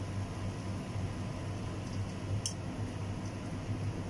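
Damp parboiled basmati rice being spooned onto marinated chicken in a metal pot, a soft squishing rustle over a steady low hum, with one light click about two and a half seconds in.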